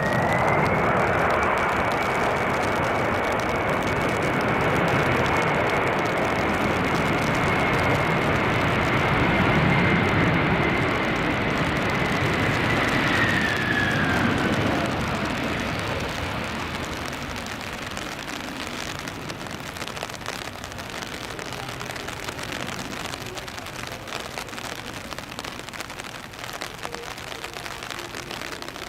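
Jet airliner's engines in reverse thrust after touchdown: a loud rush with a high whine that rises quickly at the start, holds steady, then falls away about 13 seconds in as the engines spool down, leaving a fading rumble.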